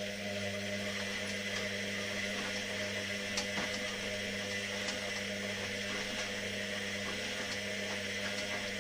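Washing machine running: a steady electric motor hum with a whirring noise over it.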